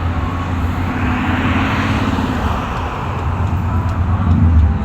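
Steady low outdoor rumble of city background noise, like road traffic, with a hiss that swells in the middle and then fades.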